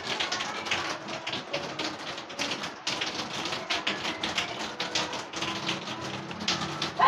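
Several cats crunching dry kibble, a rapid, irregular run of small crisp clicks.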